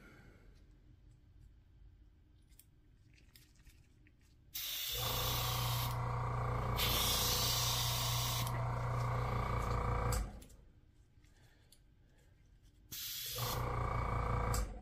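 Airbrush spraying paint in two spells: a long hiss of air starting about four and a half seconds in and lasting some five seconds, strongest in its middle, then a shorter burst near the end. Each spell has a steady low hum beneath the hiss.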